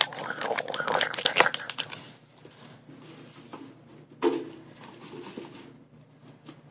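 Folded origami paper crinkling as a paper model is handled in the hand: dense crackles for about two seconds, then only faint rustles.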